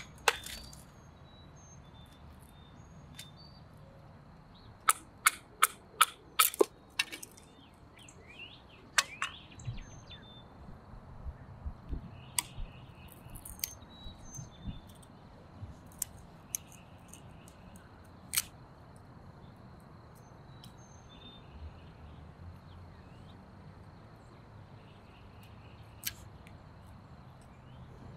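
Knife splitting a stick into thin kindling splints on a tree stump. It gives sharp wooden cracks and knocks: a quick run of about seven, roughly three a second, several seconds in, then scattered single cracks. Small birds chirp in the background.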